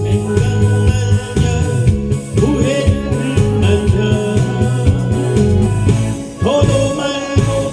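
Korean trot song sung over a full backing track, with the vocal line coming in about two seconds in and again near the end.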